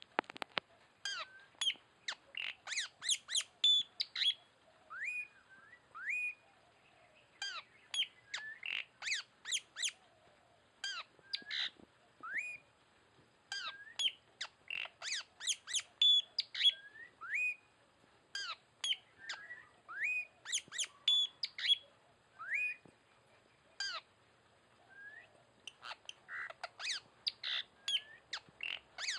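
Bird calls: clusters of sharp, rapid chirps broken by short rising whistled notes, repeating every couple of seconds with brief pauses.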